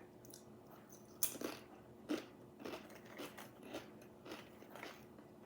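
A bite into crisp sweet potato chips about a second in, followed by crunchy chewing at about two crunches a second.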